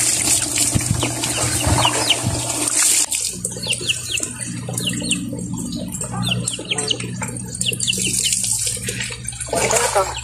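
Water splashing in a basin as a wet cat is rinsed, strongest for the first few seconds and again near the end. In between, birds chirp in short falling notes, about two a second.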